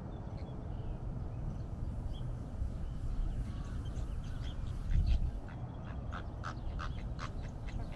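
A flock of flamingos honking in short calls: a few faint ones in the first half, then a quicker string of calls over the last two or three seconds, over a steady low rumble.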